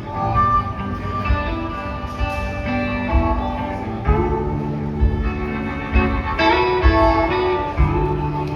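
Live electric blues band playing a slow number: guitar and a beat of low drum thumps, under a solo of held, bending notes played on blues harmonica.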